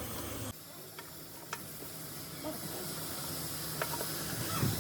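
Steady hiss with a few faint, sharp clicks.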